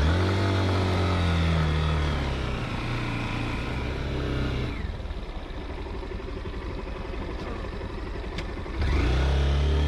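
Motorcycle engine revving up and running hard under load for about four and a half seconds. It eases off, then revs up loudly again near the end.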